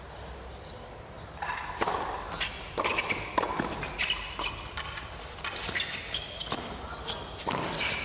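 Tennis ball being struck by rackets and bouncing on a hard court in a fast doubles rally: a quick run of sharp pops, irregularly spaced, starting about a second and a half in.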